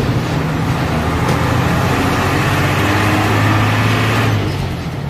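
Old bus's engine running under load, heard from inside the cab, with road noise. It pulls harder for a couple of seconds and then eases off about four seconds in.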